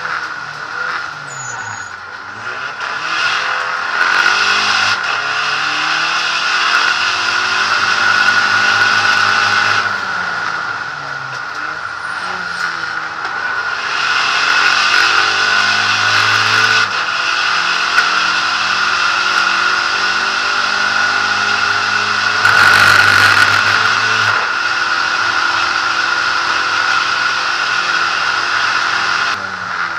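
SEAT Ibiza SC Trophy race car's engine, heard from inside the cabin at racing speed: it revs up with the pitch climbing, then drops sharply at each gear change or braking point, and climbs again, with a steady high whine over it. A brief rush of noise comes about three-quarters of the way through.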